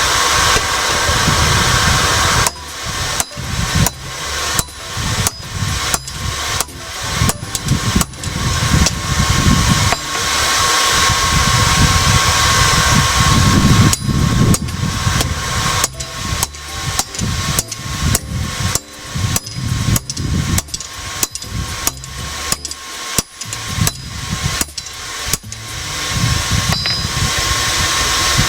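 Hand hammer striking a heated steel sword blank on an anvil at about two blows a second while drawing out the blade, starting a couple of seconds in and pausing for a few seconds midway. A forge blower runs steadily underneath.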